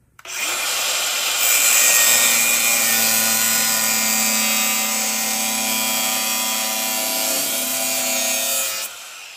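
A power tool running steadily. It starts a moment in and cuts off shortly before the end, about nine seconds in all.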